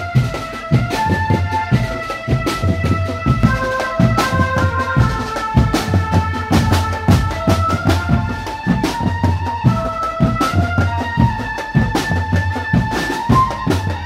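Street drum band playing: bass drums and marching drums beating a steady rhythm under a stepping high melody line.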